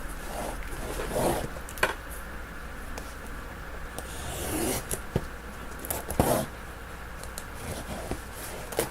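Rustling and handling of a subscription box and its packaging, with scattered soft clicks and swishes as it is opened.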